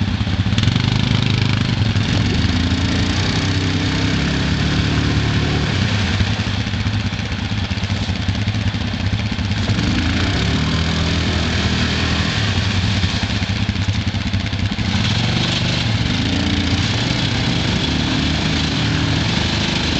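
Several ATV engines running, idling and revving, their pitch stepping up and down, as a rider tries to power a quad stuck in the mud free. A hiss joins about fifteen seconds in.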